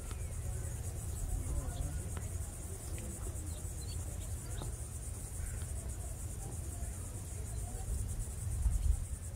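Insects buzzing in a steady, high-pitched, finely pulsing chorus, with wind rumbling on the microphone.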